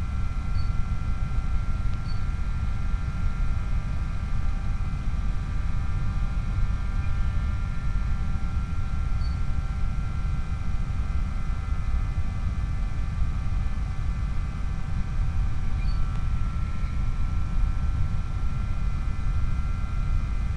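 Steady drone of an aircraft in flight: a constant low rumble with several faint, unchanging whine tones over it.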